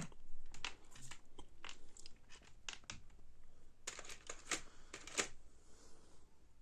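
A run of irregular sharp clicks and crackles, with a faint low steady hum underneath, from a BD424 transistor amplifier and its speaker.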